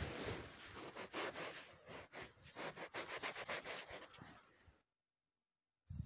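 A freshly dug 2-heller coin rubbed quickly back and forth against trouser fabric to wipe the soil off it, a dense scratchy rubbing that stops about five seconds in.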